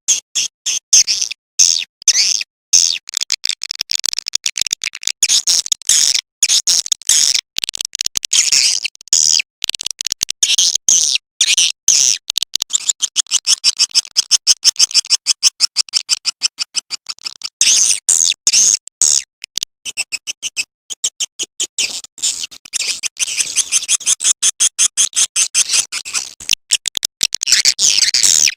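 Recorded swiftlet calls played as a lure sound to draw swiftlets into a nesting house: rapid, high, clicking twitters in dense chirping runs, a little sparser in the middle.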